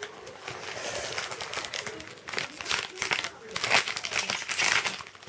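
Shiny candy wrapper crinkling and rustling irregularly in a child's hands as it is unwrapped, getting louder and busier from about two seconds in.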